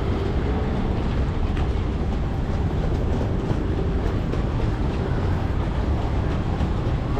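Steady low rumble of passing heavy vehicles in city street traffic, with a faint engine hum over it.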